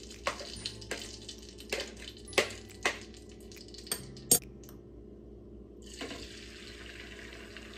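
A fork clicking against a plastic bowl of beaten eggs several times, then a sharp clack as the fork is set down. After a short gap, a steady hiss begins as the eggs go into a hot buttered frying pan.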